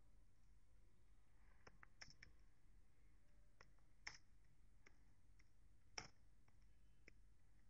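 Faint, irregular keystrokes on a computer keyboard: a dozen or so scattered clicks, some close together, over a low steady background hiss.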